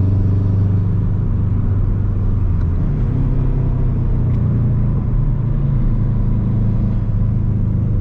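Bugeye Subaru WRX's turbocharged flat-four running steadily while driving, its exhaust note loud in the cabin. The engine note rises in pitch about three seconds in and settles back lower near the end.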